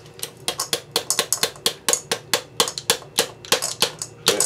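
Rapid, uneven hard clicks and knocks, several a second, as stars are emptied out of an opened aerial firework shell onto a plastic digital scale.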